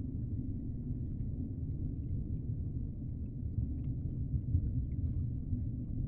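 Steady low rumble of underwater water ambience, with a few faint ticks and clicks over it.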